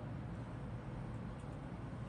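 Steady low hum with faint hiss: room tone, with no distinct event.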